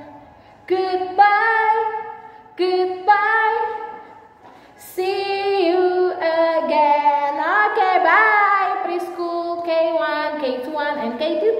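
A woman singing a children's goodbye song alone: two short held phrases with pauses between them, then a longer unbroken run of notes from about five seconds in.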